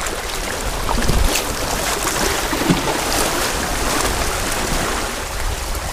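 Ocean surf washing on the shoreline, a steady wash of water noise with wind rumbling on the microphone.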